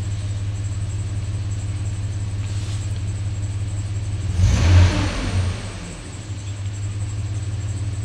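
Chevrolet Silverado's 4.3-litre V6 idling steadily at about 690 rpm, heard from inside the cab. It runs smoothly with no misfires now that a new distributor cap and rotor have cured a weak spark on cylinders 1 and 2. A brief, louder rush of noise comes about halfway through.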